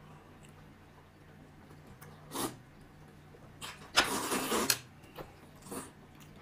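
Someone eating noisily from a bowl: a few short slurps, with a louder, longer slurp about four seconds in.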